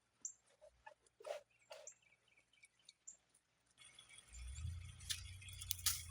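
A few faint, short bird chirps. About four seconds in, a louder low rumbling noise with hiss comes in.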